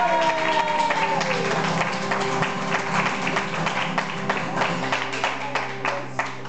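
Live band playing. A held note slides down over the first two seconds, then the music carries on with rapid sharp strokes over a sustained low chord.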